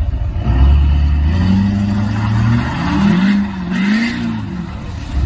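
Lifted diesel pickup's engine revving hard as the truck powers up a boat ramp out of the water, its revs climbing and then rising and falling twice, with churning water splashing around the wheels.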